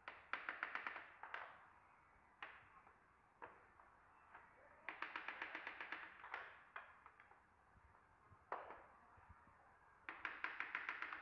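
Quick runs of light knocks, about eight a second, as a tapping block is knocked against the edge of a herringbone floor plank to close the joint, with single knocks in between. The runs come near the start, about five seconds in and about ten seconds in.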